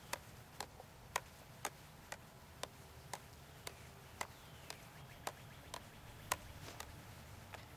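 Field hockey stick tapping a ball in a forehand dribble: faint, sharp clicks about two a second, evenly spaced.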